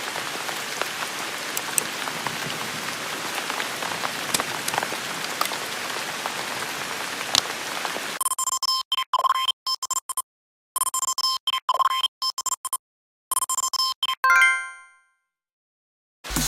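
Steady rain falling with scattered drop ticks for about eight seconds. Then a stuttering electronic effect with steady high beeping tones cuts rapidly in and out, ends in a short fading ring, and leaves about a second and a half of silence.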